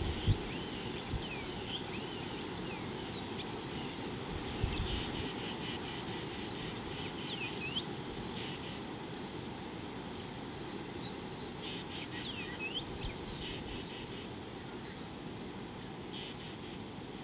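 Small birds chirping on and off in short, quick sweeping calls over a steady low background rumble. A couple of brief low thumps, one right at the start and one about four and a half seconds in.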